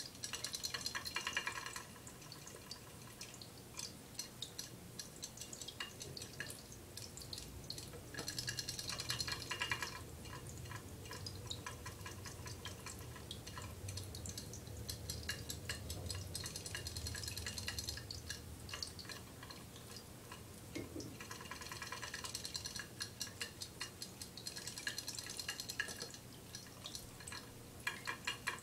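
Ceramic pet drinking fountain running, water trickling into the bowl over a low steady hum, broken every several seconds by bursts of rapid small splashes and ticks in the water.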